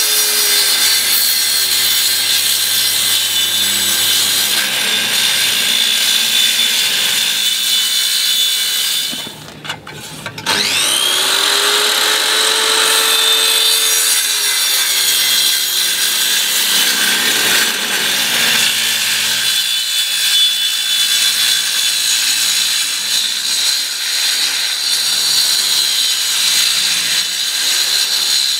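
Handheld circular saw cutting a long straight line through a plastic polyboard sheet. About a third of the way in it stops briefly and starts again, its pitch rising as the blade spins back up, then it carries on cutting.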